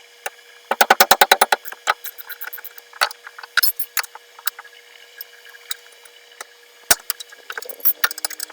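Socket ratchet clicking rapidly, about ten clicks a second for roughly a second, then scattered metallic clicks and taps, as the 19 mm caliper bracket bolts on a rear brake are worked loose.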